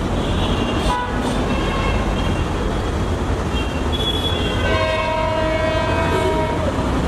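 Bangladesh Railway commuter train running on the track with a steady low rumble, and a train horn sounding one held blast of about two seconds near the end.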